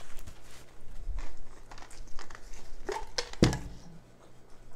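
Paper napkin crinkling and rustling as hands are wiped, with scattered small clicks. A little past three seconds in comes a single solid thump as a plastic tumbler is set down on the table.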